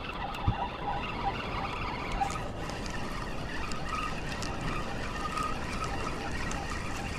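Spinning reel being cranked as a hooked Spanish mackerel is reeled in, over a steady wash of wind and water. A sharp click about half a second in.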